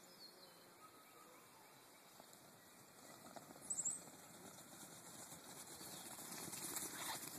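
A flock of sheep trotting across grass toward the camera: a soft patter of hooves and movement starts about three seconds in and grows louder toward the end. A short, high chirp sounds just before the hooves come up.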